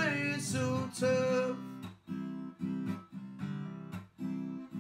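Acoustic guitar strummed in a steady rhythm. For about the first second and a half a man's voice holds the end of a sung line over it, then the guitar carries on alone.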